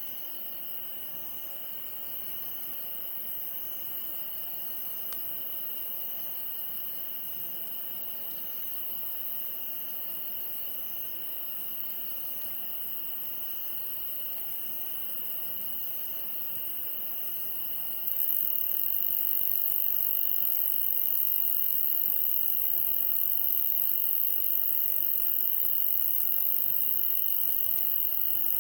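Insects chirping in the dark: several steady high trills at once, with a short pulsed call repeating about once a second, the highest trill getting louder about two thirds of the way through.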